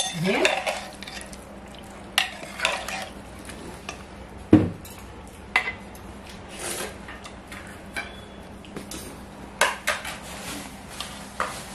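Steel ladle stirring mutton curry in an aluminium pressure cooker, scraping and clinking irregularly against the pot's sides, with one louder knock a little before halfway.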